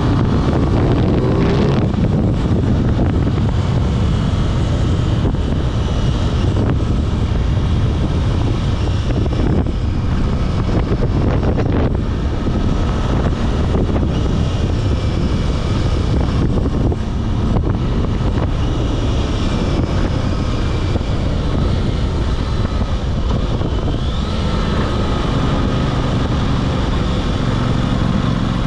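Aprilia RS660's parallel-twin engine and exhaust running under way, its pitch rising briefly just after the start, with wind rushing over the microphone.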